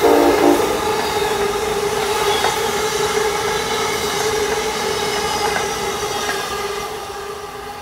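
Amtrak Northeast Regional passenger cars rolling past at restricted speed, with a steady hum and the occasional click of wheels over rail joints. It opens with a couple of short tonal blasts in the first half second and fades near the end as the train draws away.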